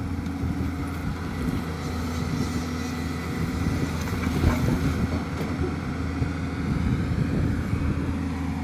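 Excavator's diesel engine running steadily under load while its hydraulic breaker hammers, giving a continuous drone with a dense, irregular rattle of knocks.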